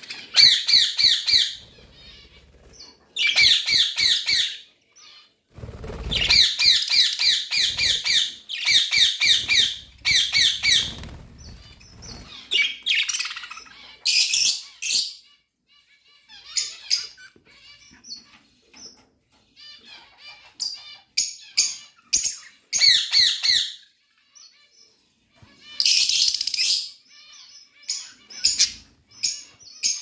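A flock of caged budgerigars chirping and chattering in bouts of rapid high chirps, with short pauses and scattered single chirps between the bouts.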